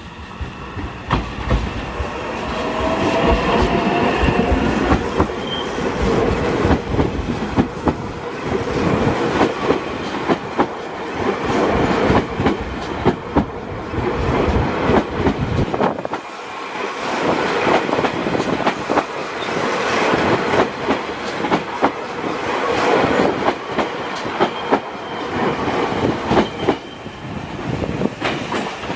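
Meitetsu electric train rolling slowly past, its wheels clicking steadily over the rail joints, with a short lull about halfway before the clicking picks up again.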